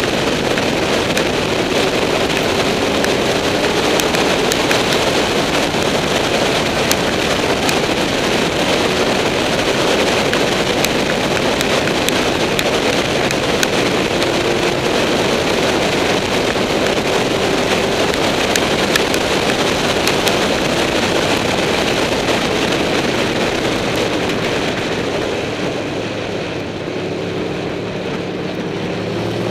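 Heavy wind rush on the microphone of a camera on a moving Honda VFR800, with the bike's V4 engine note faintly beneath it, rising and falling in pitch. Near the end the wind eases and the engine comes through more clearly as the bike slows and leans into a bend.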